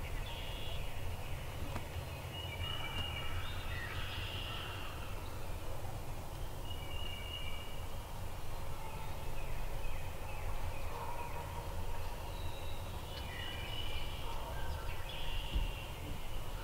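Wild turkeys calling and gobbling, loudest about three seconds in and again near the end, over a steady low rumble.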